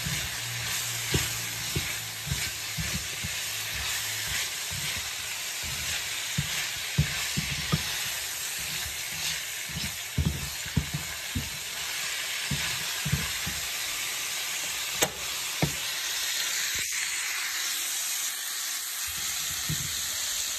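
Ground meat, bell peppers and onions sizzling steadily in a nonstick skillet while a spatula stirs them, scraping and knocking against the pan at irregular moments.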